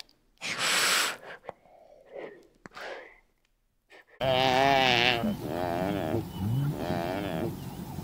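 Short, noisy breaths or huffs from an animal, one of them loud, just under a second in. Then, after an abrupt cut about four seconds in, a farm animal bleats three times, each call quavering in pitch.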